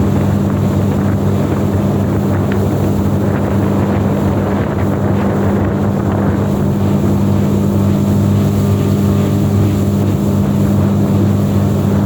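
Suzuki 20 hp outboard motor running at a steady speed under way, with wind noise on the microphone.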